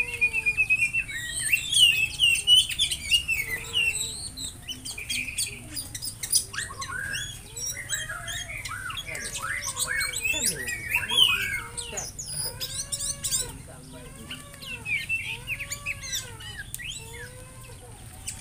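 Oriental magpie-robin (kacer) calling, a busy run of chirps and whistles, followed in the second half by a string of arching calls about once a second.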